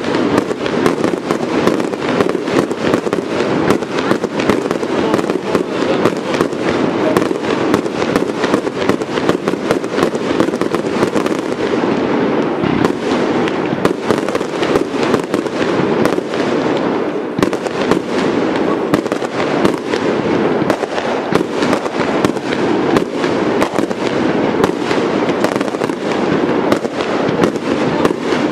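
Fireworks display: aerial shells bursting in a rapid, unbroken barrage of bangs, several a second.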